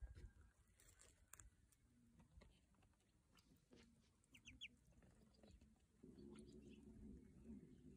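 Very faint sounds of a duckling in a shallow tub of water: a few short, high peeps about halfway through, then low sloshing and splashing of water from about three-quarters in as the duckling dips under.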